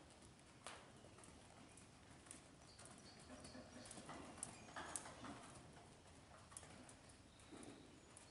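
Faint hoofbeats of a horse trotting under saddle on a soft dirt arena floor, an irregular patter of soft thuds and clicks with a few louder strikes.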